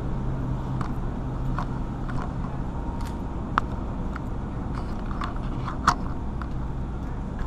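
Shopping cart being pushed through a store aisle: a steady low rumble and hum, with scattered clicks and rattles. Two sharper knocks come about three and a half and six seconds in.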